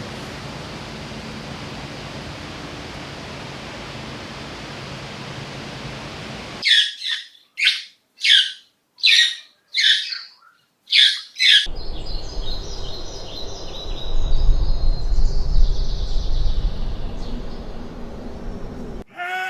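A bird chirping: about seven short, loud chirps roughly a second apart in the middle, with steady background noise before them. After the chirps comes fainter high twittering over a low rumble.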